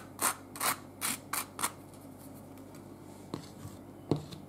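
Butter knife scraping garlic butter across a slice of toast: about five short, raspy strokes in quick succession, then a pause broken by two light knocks near the end.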